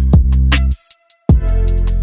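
Background music with a steady beat of sharp drum hits over deep sustained bass notes, dropping out for about half a second near the middle.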